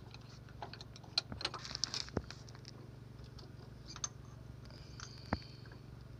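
Scattered metallic clicks and clinks of hand tools working the excavator's main relief valve loose from the control valve, a cluster of them between about one and two seconds in and a sharper single knock near the end, over a steady low hum.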